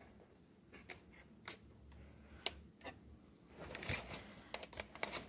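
Faint handling noise: scattered light clicks and brief rustling, busier in the second half.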